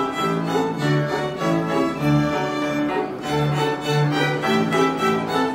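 A small cimbalom band of violins, clarinet, cimbalom and double bass playing a folk tune, the violins carrying the melody over a repeating bass line.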